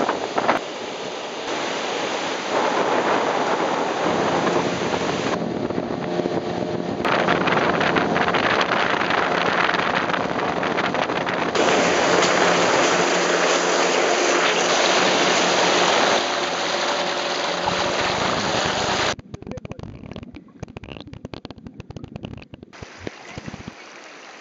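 Wind buffeting the microphone over surf and water rushing across a coral reef edge. The noise changes abruptly several times and drops much quieter about five seconds before the end.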